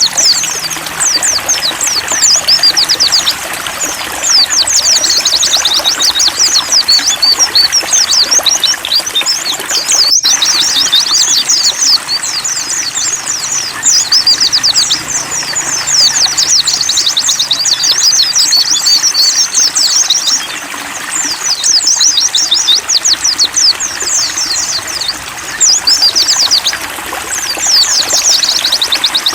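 White-eye (pleci) singing a fast, continuous twittering song of rapid high notes, broken by a couple of short pauses, over a steady trickle of running water.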